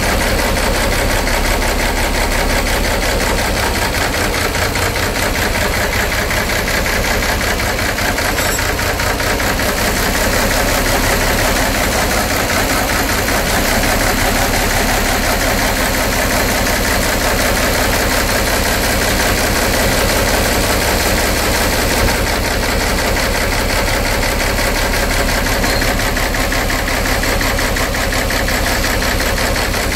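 Cummins N14 inline-six marine diesel running steadily at a low, even speed, just started after new injectors were fitted, with its rocker covers off.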